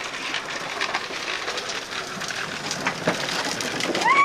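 Sprinkler water falling on a wet concrete driveway, a steady hiss with fine spatters. Near the end a high voice gives a short call that rises and then falls.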